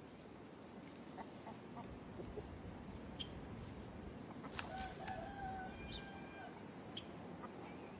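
Flock of chickens clucking quietly while foraging, with one drawn-out call about halfway and a few high short chirps in the second half.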